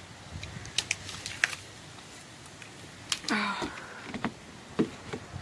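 Scattered light clicks and crunches of hands and feet moving in snow while a broken plastic headset is handled, with a brief creak about three seconds in.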